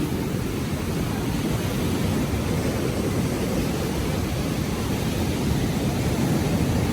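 Steady low rumble of wind buffeting the microphone, over the rush of strong ocean surf.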